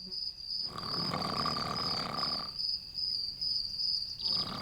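A man snoring heavily: two long snores, each about two seconds, the second starting near the end, over a steady high pulsing chirr.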